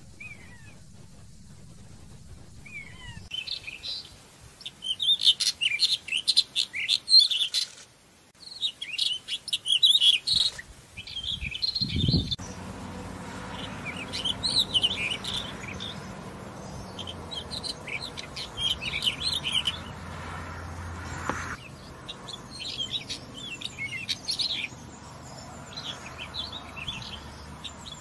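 Black wheatear singing: short, high warbling phrases repeated again and again with brief pauses between them.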